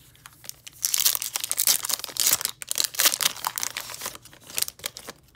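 Plastic wrapper of a trading card pack crinkling as it is torn open and handled, a dense crackle for about four seconds.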